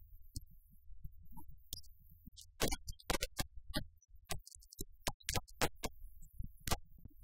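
Fireworks going off: a string of sharp pops and bangs at irregular intervals, sometimes several a second.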